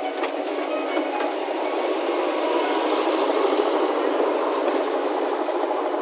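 JCB backhoe loader's diesel engine running steadily as the machine drives with a loaded front bucket, getting a little louder toward the middle.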